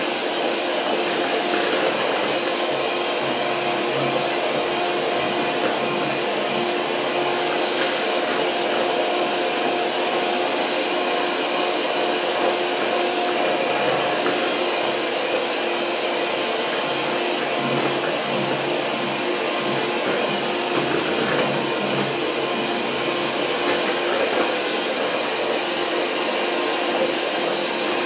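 Electric stand mixer running steadily, its beaters whipping fresh cream and sugar to a foam: an even motor whir with a steady hum.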